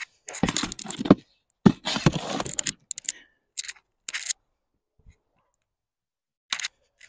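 A steel shovel scraping and scooping loose soil in several rough bursts over the first three seconds, then a few short scrapes with quiet gaps between.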